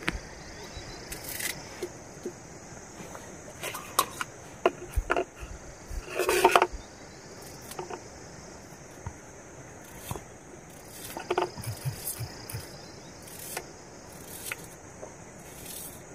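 Kitchen knife slicing a red onion by hand, irregular crisp cuts and small clicks, with a louder rustle about six seconds in. A steady high chorus of crickets runs underneath.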